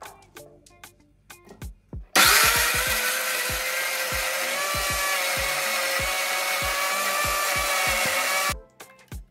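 Electric mixer grinder running with a steel jar of onion pieces, grinding them to a paste: the motor starts suddenly about two seconds in, runs loud and steady with a whine for about six seconds, then stops. Background music with a beat throughout.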